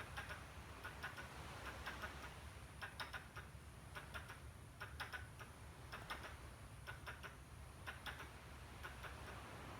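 A squirrel making short clicking calls in bursts of a few quick clicks, about one burst a second, faint against a low steady hum.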